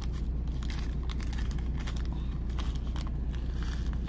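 Small plastic zip bag crinkling as fingers open it, with light clicks of Czech glass spacer beads shifting inside, over a steady low hum.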